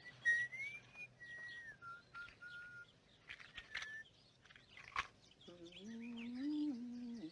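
A tune whistled in slow, held notes that step up and down, then a few small clicks from something handled. From about five and a half seconds in, a low hummed tune follows.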